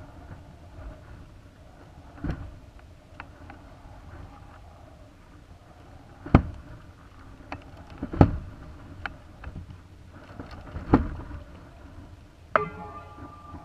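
Sharp, irregular knocks and clicks from a high-altitude balloon payload and its onboard camera as it swings, about five of them, with a short creak near the end. A faint steady hum runs underneath.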